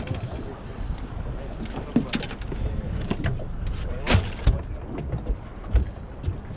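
Knocks and clatter of handling on a boat deck, the sharpest around the middle as a plastic cooler lid is opened, over a steady low rumble.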